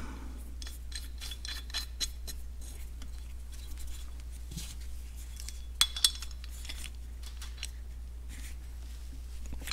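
Light metallic clicks and scraping as a brass inlet needle seat is threaded into a Farmall M carburetor's throttle body and turned in with a tool, with a couple of sharper clinks about two and six seconds in.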